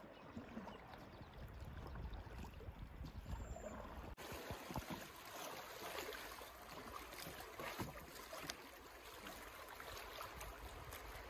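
Faint river water rushing and lapping around a drifting canoe, with small knocks and splashes. About four seconds in, the water noise turns fuller and hissier as the canoe runs through riffles.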